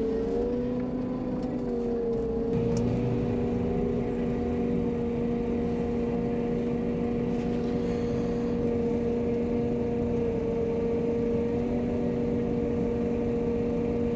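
Diesel engine of a feed mixer wagon running steadily at raised revs, driving the silage milling cutter as it mills silage from the clamp.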